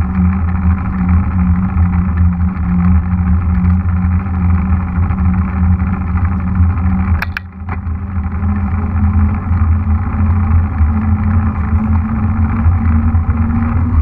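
Mountain bike rolling on asphalt: a loud steady drone of tyre hum and wind rumble on the microphone, its pitch creeping up slightly in the second half. About seven seconds in come two sharp clicks and a brief dip in the noise.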